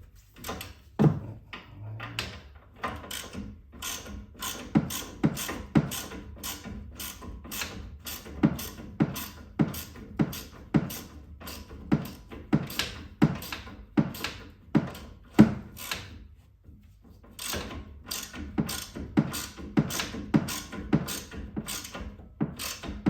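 Hand ratchet wrench clicking in a steady rhythm, about two clicks a second, as a suspension nut is run down. It pauses briefly about two-thirds of the way through and then resumes.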